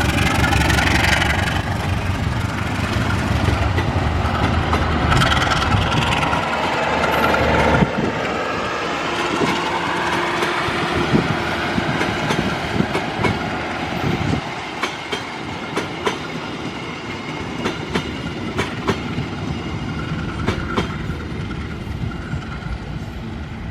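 A passing train: a diesel locomotive's engine rumbles loudly for the first several seconds, then the carriage wheels clatter over the rail joints in a long run of clicks and knocks that slowly fades.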